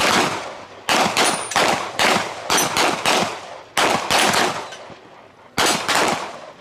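Several handguns firing at once in an uneven string of about a dozen shots. Some shots come close together or overlap, in clusters with short gaps between them, and the last comes about six seconds in.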